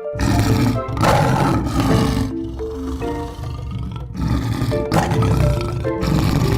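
A large wild animal roaring in about five loud, rasping bursts over background music with steady held notes.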